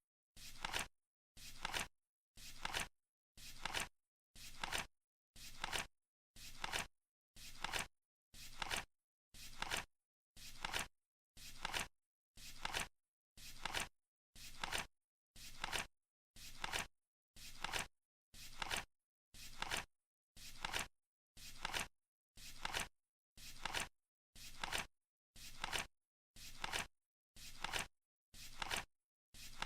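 Flip-clock sound effect: a digit card flapping over once every second, each flap short and crisp and cutting off sharply.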